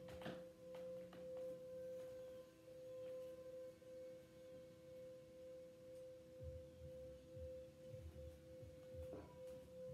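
Metal singing bowl ringing in one long steady tone, with a couple of light knocks right at the start.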